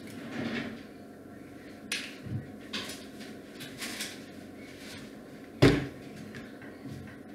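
Handling noise at the neck of a large plastic carboy: a few short knocks and clicks, then one sharper, louder thump a little past the middle.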